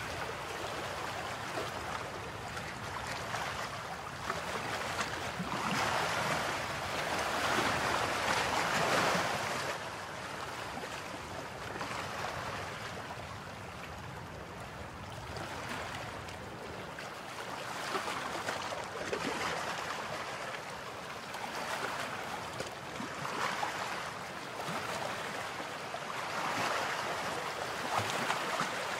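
Sea surf breaking on a beach: a steady hiss of waves that swells and fades every few seconds.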